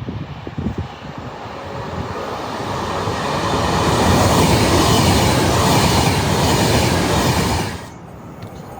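A train passing at speed close by, the rush and rumble of its wheels on the rails building over several seconds, then stopping suddenly near the end.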